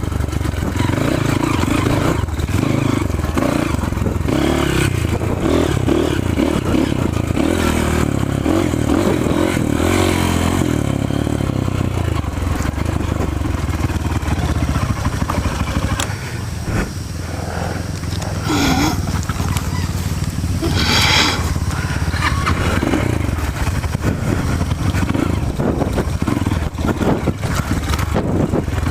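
Off-road motorcycle engine running on a trail, its note rising and falling as the throttle changes.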